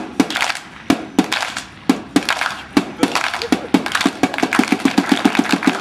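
A run of sharp claps or knocks, a few spaced apart at first, then quickening to an even rhythm of about five a second near the end.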